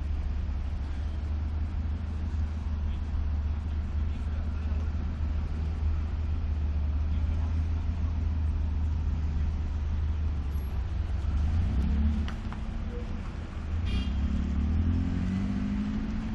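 Steady low engine rumble of motor vehicles. A vehicle's engine note swells and shifts in pitch about twelve seconds in and again near the end.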